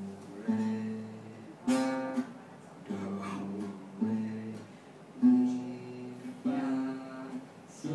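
Acoustic guitar being strummed: six chords struck about once every second and a bit, each left to ring before the next.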